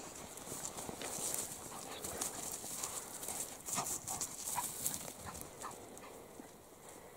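Soft rustling and scattered short sounds of a Norrbottenspets and a person moving through dry heather and moss, growing quieter near the end as the dog runs off.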